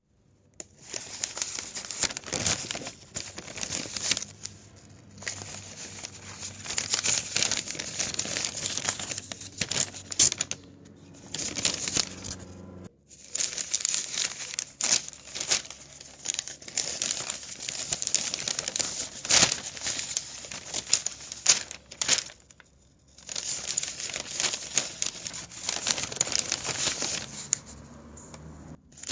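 Newspaper being handled, rustling and crinkling in long bursts of crackle, with brief pauses about 5, 11, 13 and 23 seconds in.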